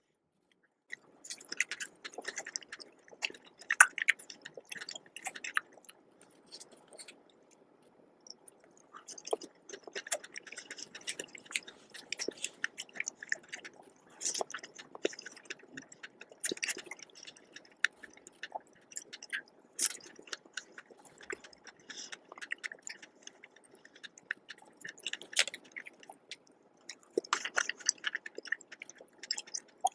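Close-miked chewing and wet mouth clicks of someone eating strawberries with whipped cream, marshmallows and chocolate biscuits, irregular and nearly continuous with a short lull about seven seconds in.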